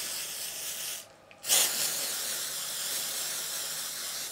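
Aerosol spray can of Nails Inc spray-on nail polish spraying in two bursts. A hiss stops about a second in, then a louder hiss starts sharply half a second later and keeps going.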